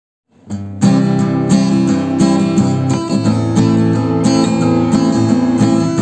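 Intro music led by a strummed guitar, fading in about half a second in.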